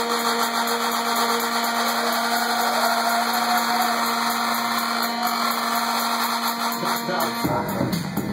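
Electronic dance music played by a DJ at club volume, in a breakdown with the bass cut: a noisy, filtered build over a steady held tone, with a tone that slides up and back down. About seven and a half seconds in, the bass and kick drop back in.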